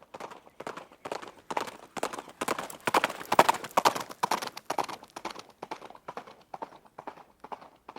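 Horse's hooves striking the ground at a run in a quick, steady rhythm, growing louder to a peak a little past the middle and then fading away again.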